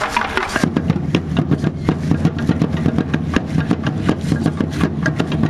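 Aztec dance rattles shaking: dancers' seed-pod ankle rattles (ayoyotes) and a hand rattle in a dense, fast clatter over a steady low throb.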